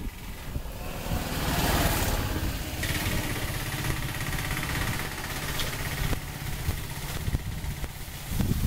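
An engine running steadily with a low pulsing rumble; a thin whine sounds above it for a few seconds from about three seconds in.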